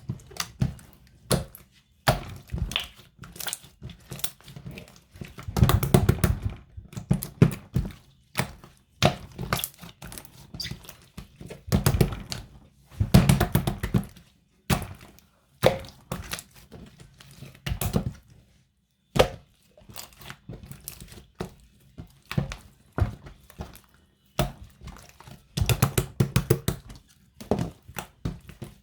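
Hands squishing and pressing a jiggly slime, giving irregular runs of many small sticky clicks and squelches with short pauses between them.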